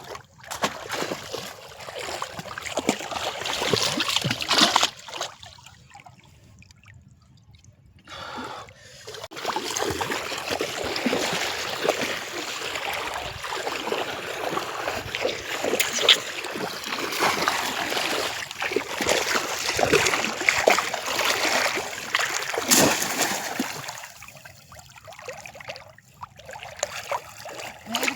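Shallow canal water splashing and sloshing as many people wade and work through it, a continuous churning hash of small splashes. It drops away for a few seconds about five seconds in and again near the end.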